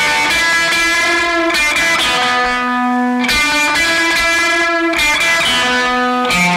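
Background music: sustained electric guitar chords that change every second or two.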